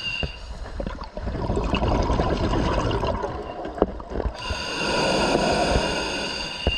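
Scuba diver breathing through an open-circuit regulator underwater: a long bubbling exhale from about a second in, then a hissing inhale with a thin whistle from about four seconds in.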